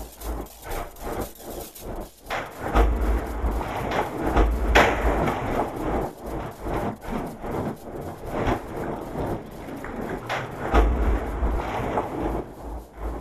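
Irregular knocking and clattering mixed with bursts of deep rumble, part of a looped sound-design piece.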